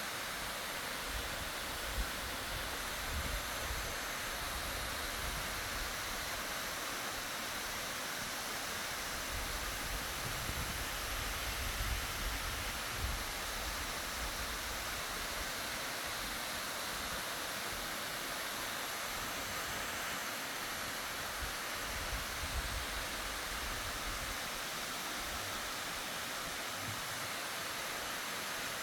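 Waterfall rushing: a steady, even roar of falling water, with occasional low rumbles underneath.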